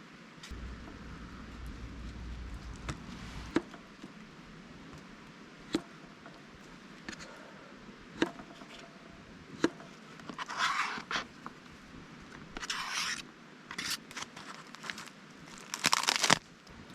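Hand food-preparation noises: a handful of separate sharp taps and clicks, then several short scraping, crinkling bursts, the loudest near the end.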